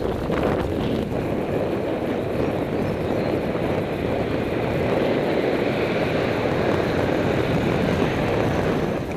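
Steady rush of wind noise and road rumble on the microphone of a camera riding a bicycle along a paved street, stopping abruptly near the end.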